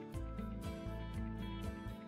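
Background music with a steady beat and sustained instrument notes.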